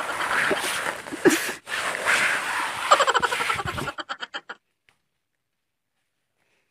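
A man grunting and groaning with effort as he climbs down a tree trunk, over heavy breathy noise. About four and a half seconds in, the sound cuts off to dead silence.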